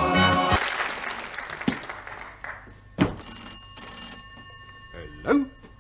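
The theme tune cuts off in the first second, then an old desk telephone's bell rings. A sharp strike about three seconds in leaves a ringing tone hanging on.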